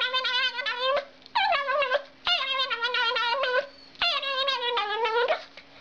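Small dog vocalizing in long, wavering, high-pitched cries, four in a row with short breaks between them, the pitch dropping at the end of each. A faint steady hum runs underneath.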